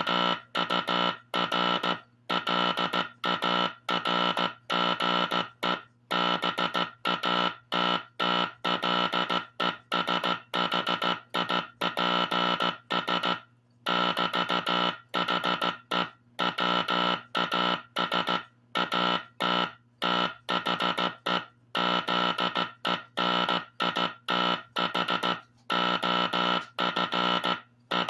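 Vintage Teleplex code practice oscillator sending Morse code from a coded drum through its speaker: one buzzy tone keyed on and off in short and long marks, dots and dashes, with a longer pause about thirteen seconds in. A faint low hum carries on between the tones.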